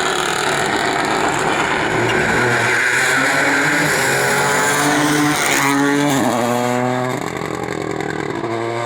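Rally car engine revving hard on a special stage, its pitch stepping through gear changes. About five and a half seconds in the pitch drops and climbs again.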